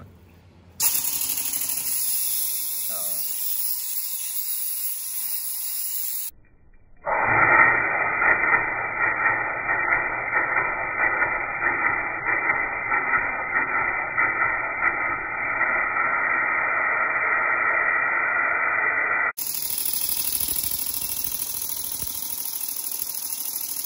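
Stuart 10V model steam engine running on its supply hose, with a steady loud hiss of the supply escaping as it turns over poorly. The hiss starts about a second in, drops out briefly about six seconds in and returns duller, then brightens again near the end.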